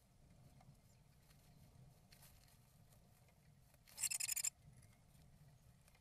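Great tit shuffling and working the moss lining of a wooden nestbox: faint rustling and scratching. About four seconds in comes a loud, high-pitched, rapid chattering bird call lasting about half a second.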